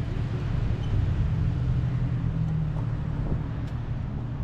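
Jeep engine idling with a steady low hum.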